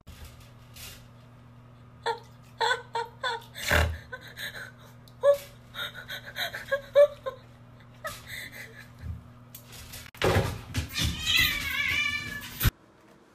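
Cat meowing in many short, repeated calls over a low steady hum. About ten seconds in comes a louder, noisier stretch with a high wavering cry, which stops suddenly.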